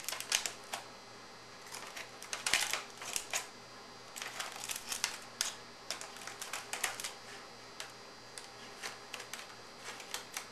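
Aluminum foil crinkling in irregular short crackles as metal tongs pull back a foil tent over a roasting pan. The crackles are loudest near the start and again about two and a half to three and a half seconds in.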